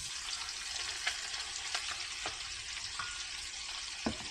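A mutton snapper fillet sizzling steadily in a frying pan of butter, oil and softened tomatoes. A spatula makes a few light knocks against the pan, the firmest about four seconds in.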